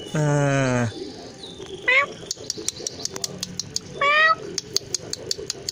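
Young tabby cat meowing twice, short calls rising in pitch about two seconds apart. Quick high-pitched ticks run behind them through the second half.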